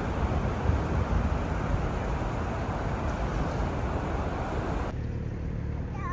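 Steady city street noise: traffic with wind rumbling on the microphone. About five seconds in it cuts to a quieter, duller outdoor background.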